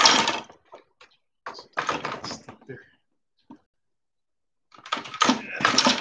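Paintbrush scrubbing and blending oil paint on canvas: three bursts of scratchy strokes, each about a second long.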